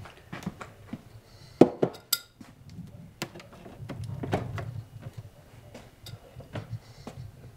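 Knocks and clinks as a glass clip-top jar of berries is handled and a refrigerator door is opened. The loudest knock comes about one and a half seconds in.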